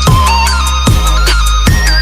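Electronic dance music in an instrumental stretch: deep kick hits that drop sharply in pitch, about one every 0.8 seconds, under a steady bass and a high synth melody.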